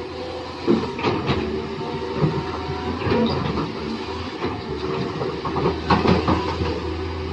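Electric motors and gearboxes of a radio-controlled Huina construction toy whirring steadily, with scattered clicks and knocks.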